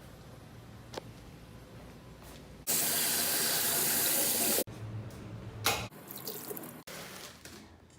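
Water running hard from a tap for about two seconds, starting and stopping abruptly, with quieter water and handling noise around it.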